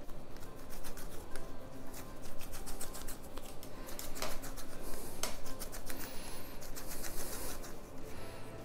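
Hands pinching off and rolling soft chapati dough between the palms: faint, irregular sticky clicks and rubbing.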